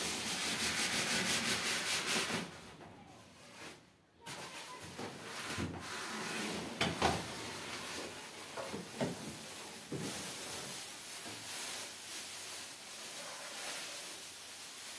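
A large cardboard appliance carton scraping and rubbing as it is slid up and off a freestanding electric oven, loudest and fastest in the first couple of seconds, then a few knocks as the box is handled. Plastic wrapping rustles near the end as it is pulled off the oven.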